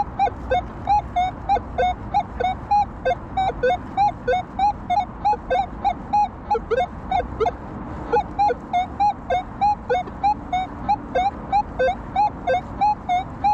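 Minelab Manticore metal detector beeping in a rapid, even string of short tones, about four a second, mostly at one pitch with some lower, broken notes mixed in and a brief break about eight seconds in. It is a jumpy target signal that keeps repeating over a target in a bed of iron.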